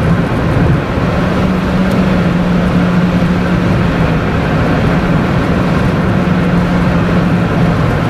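Car interior noise while cruising on a highway: a steady drone of engine and tyre noise with a constant low hum.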